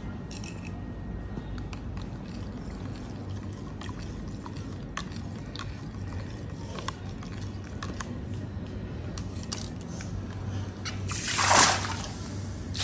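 Small drips and ticks of water as a cup is dipped into a bucket, over a low steady hum. About a second before the end comes a loud splash as a cupful of medicated water is flung onto the koi pond surface.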